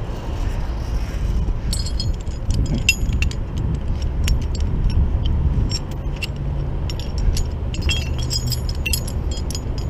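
Metal tow rigging clinking and jingling as it is handled: quick, irregular clicks starting about two seconds in. Under it is the steady low rumble of a running vehicle.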